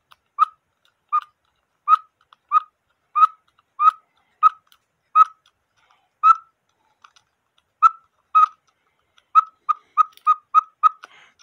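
Short, high, squeaky chirps from a cuckoo-clock bellows and its screw-on weight being handled, about one or two a second, quickening to several a second near the end.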